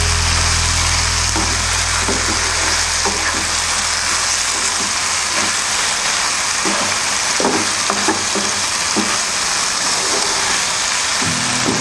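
Chicken livers sizzling in oil in a nonstick frying pan, stirred with a wooden spatula that scrapes and knocks against the pan every second or so. A low hum fades out over the first few seconds.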